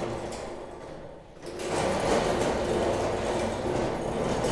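Tool rack cart rolling on its caster wheels across a concrete floor: a steady rolling rumble that starts about a second and a half in.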